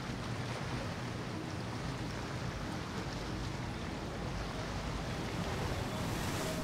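Steady wash of water and wind, with a low rumble underneath, as a motor yacht runs past throwing a bow wave.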